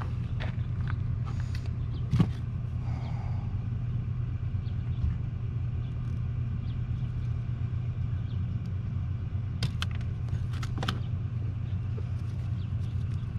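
A steady low mechanical rumble, like a running engine, with a few sharp clicks on top. The loudest click is about two seconds in, and a few more come near the end.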